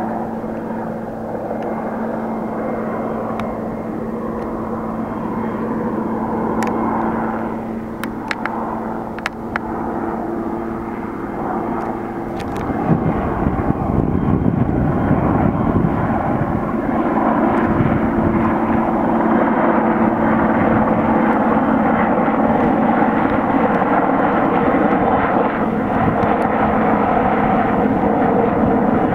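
IAR 330 Puma military helicopter in flight: a steady turbine whine, then, a little under halfway through, a louder low rotor-blade chop joins in and stays as the helicopter comes closer, with a slowly falling tone above it.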